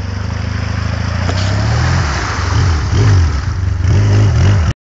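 Kreidler Mustang quad's engine running, getting louder as it comes close, then revving up and down several times, with water splashing around the wheels as it drives through floodwater. The sound cuts off abruptly near the end.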